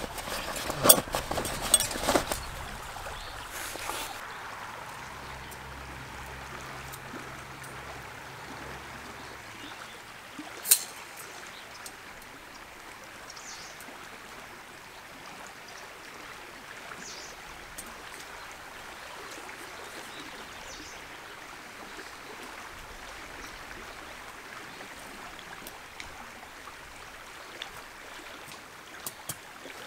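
Metal clattering and clicking as a Bitty Big Q folding grill is pulled out of its drawstring bag in the first couple of seconds, then the steady rush of a flowing river. One sharp click comes about eleven seconds in, and light metal clicks near the end as the grill is unfolded.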